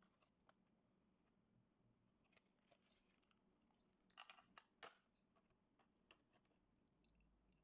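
Faint crinkling and clicking of a diecast car's plastic blister pack being handled and opened, with a cluster of sharper clicks about four seconds in.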